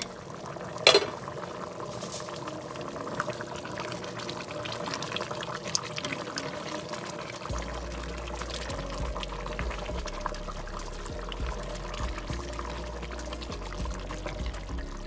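A steel pot of collard greens and mutton stew boiling and bubbling while a ladle stirs it, with many small crackles and clicks. There is one short loud sound about a second in.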